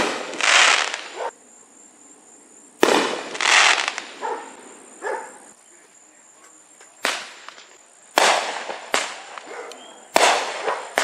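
Fireworks going off: five sharp bangs at irregular intervals, each trailing off in a short crackle.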